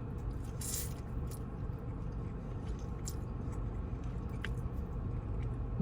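A person chewing food, with a few faint soft mouth clicks over a steady low background hum.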